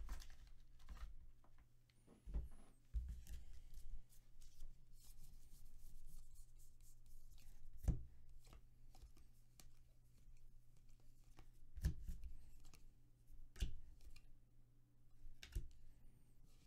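A stack of Bowman Draft baseball cards being handled and flipped through: faint sliding and rustling of card stock with a few sharp taps. A low steady hum runs underneath.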